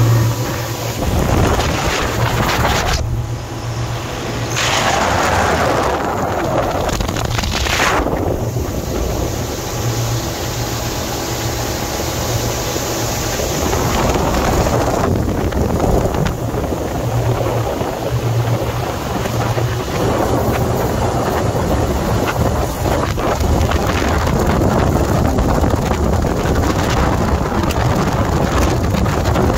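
Outboard-powered fishing boat running at speed: a steady engine drone under heavy wind buffeting on the microphone, the gusts swelling and fading several times.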